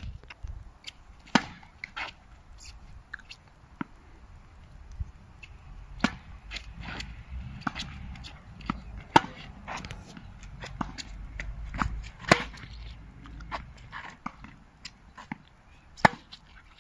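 A tennis rally on an outdoor hard court: sharp pops of the ball off the rackets and bounces on the court, with smaller clicks and scuffs between them. One of the loudest pops comes near the end, as the near player hits the ball.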